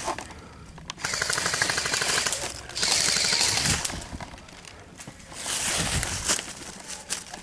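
Airsoft electric rifle firing on full auto: a rapid rattle of shots in a long burst from about a second in, then a second burst near the end.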